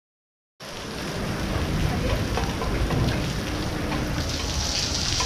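Silent for the first half-second, then heavy rain falling steadily on a wet concrete courtyard.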